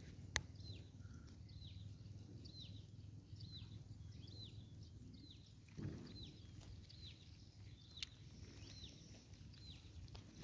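A bird faintly repeating a short falling call note, about one and a half times a second, over a low background rumble, with two sharp clicks, one just after the start and one about 8 seconds in.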